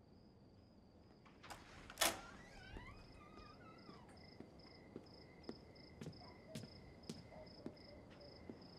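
Crickets chirping in a steady pulsing trill, with a second, lower trill joining about three seconds in. A single sharp click comes about two seconds in, and a few light ticks follow later.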